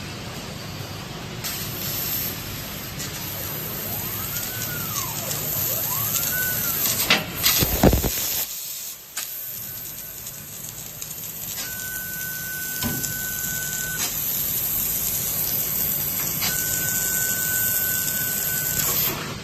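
12,000-watt laser cutting machine running, with a steady hiss throughout. A tone rises and falls twice, a few knocks come about seven seconds in, and a steady high tone sounds in two stretches near the end.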